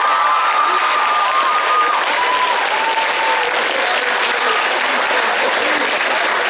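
Audience applauding steadily, a dense sustained clatter of many hands. A few held high tones sound over it in the first half.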